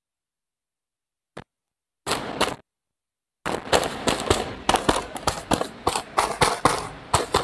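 Filled, heat-sealed plastic packing bags crinkling and crackling under hands as they are patted and arranged. There is a short crinkle about two seconds in, then a quick, dense run of sharp crackles from about three and a half seconds on.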